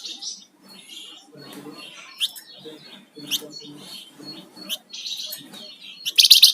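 Flamboyan songbird singing: sharp chirps and quick upward-sweeping whistled notes about once a second, then a loud burst of rapid notes near the end.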